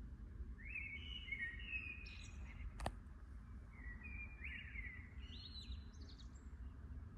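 Songbirds singing in the early-morning dawn chorus: short chirping phrases with quick rising notes, repeated several times, over a steady low rumble. One sharp click about three seconds in.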